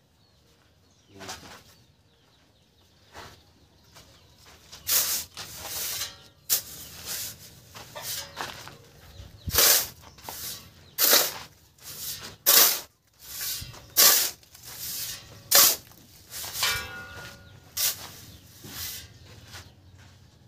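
Steel shovel scraping and scooping through a pile of sand and cement being dry-mixed by hand for mortar, in a string of short strokes about one a second, starting about four seconds in.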